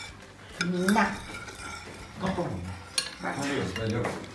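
Metal spoon stirring soup in a bowl, scraping and clinking against the bowl, with a couple of sharp clinks.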